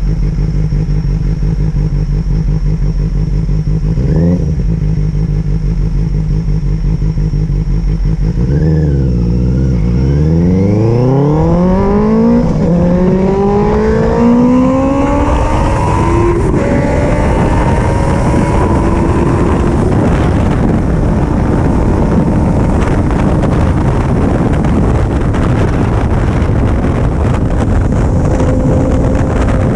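Benelli 600 GT's inline-four engine through a Yoshimura Alpha replica exhaust. It idles with one short rev about four seconds in. From about eight seconds it pulls away and accelerates, rising in pitch through three upshifts, then runs at a steady speed with rushing wind.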